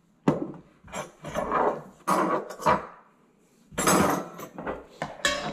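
Metal cutlery clinking and scraping against a ceramic bowl while eating: a sharp clink just after the start, a run of scrapes, a brief pause, then louder scrapes about four seconds in.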